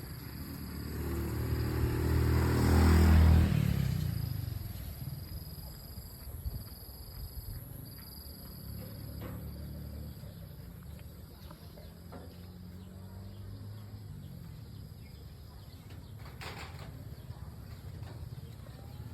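A motor vehicle's engine passing by, swelling to its loudest about three seconds in and then fading away, with engine sound falling in pitch as it recedes. A faint, steady, pulsing high insect-like tone runs underneath.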